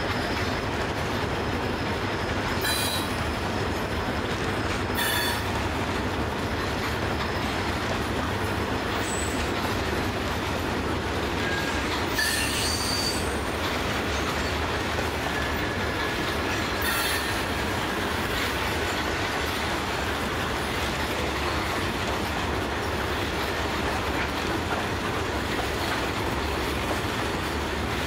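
Broad gauge grain hopper wagons rolling steadily past, a continuous rumble of steel wheels on the rails. Brief high metallic wheel squeals cut through four times, about 3, 5, 12 and 17 seconds in.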